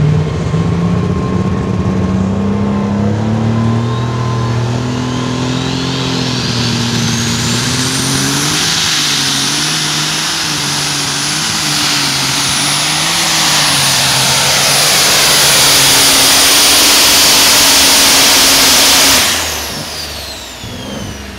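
Case IH MX210 light super stock pulling tractor's turbocharged diesel engine under full load on a pull: the engine note climbs over the first few seconds while a high turbo whine rises to a steady high pitch and holds. Near the end the engine is shut off, the sound drops sharply and the whine falls away as the turbos spool down.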